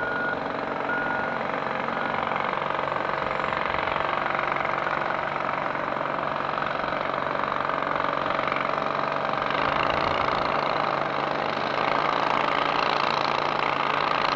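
Heavy diesel engine of a wheel loader working, a steady drone that grows louder about ten seconds in.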